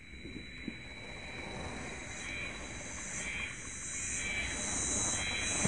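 Insects buzzing in a regular on-off pulse, about once or twice a second, that sets in about two seconds in and grows louder. Underneath runs a low, steady rumble.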